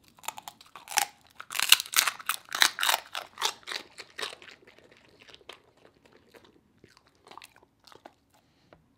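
A corgi biting and chewing a dried cod-skin fish treat: a quick run of loud, brittle crunches that thins out after about four seconds into a few faint crunches.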